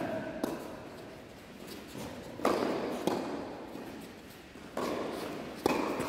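A doubles tennis rally: about five sharp pops of the ball being struck by rackets and bouncing on the court, spaced a second or so apart, each ringing on in the echo of a large indoor hall.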